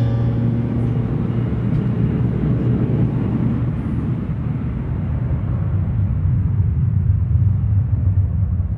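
Steady low rumble of a metro train in motion, heard from inside the carriage.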